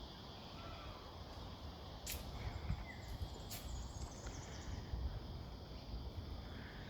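Outdoor ambience: a steady high chirring of insects with a couple of faint short bird chirps and a low rumble of wind. Two sharp clicks about two and three and a half seconds in.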